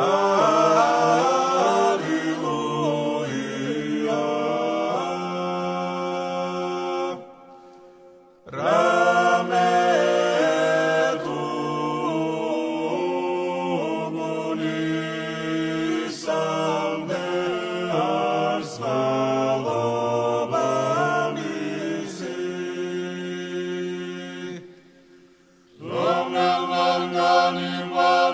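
Georgian church chant sung a cappella by a choir in three-part harmony, the upper voices moving over a held low part. It comes in three phrases, broken by short pauses about seven seconds in and again near the end.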